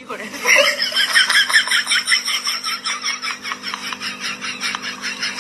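Laughter in a rapid, even run of short bursts, about five a second, over a steady hum.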